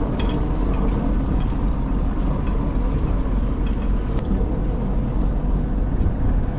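Fishing boat's engine running steadily with a low rumble, with a few light clicks over it.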